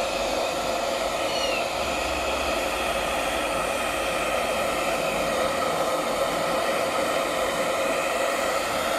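Handheld hair dryer blowing steadily while drying a wet long-haired kitten's fur: an even rush of air with a few steady tones running through it.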